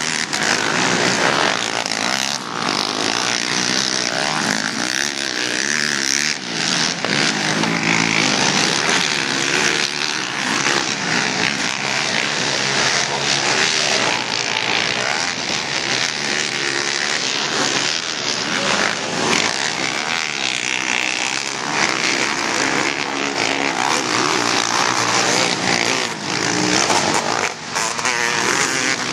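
Racing ATV (quad) engines on a motocross track, several machines revving up and down as they accelerate and back off, the pitch rising and falling again and again.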